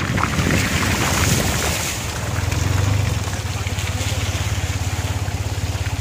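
Car tyres splashing through shallow water running across a road for about two seconds. The vehicle then runs on with a low, steady rumble.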